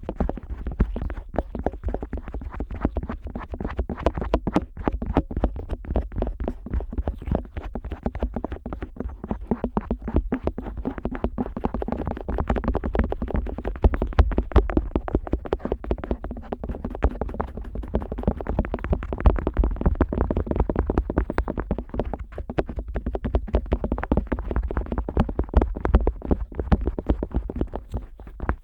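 An otoscope rubbing and scraping over the silicone outer ear of a Neumann KU100 dummy-head microphone, heard right at the ear: a dense, unbroken run of crackling scrapes over a deep rumble.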